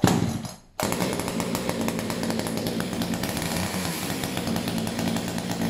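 Echo CS3000 two-stroke chainsaw warm-started with the choke off: it fires briefly and cuts out, then about a second in it starts and runs steadily.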